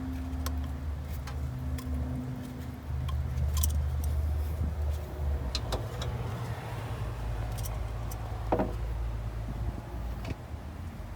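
Scattered light clicks and clinks of hand tools and parts being handled during hose and clamp work, over a steady low hum.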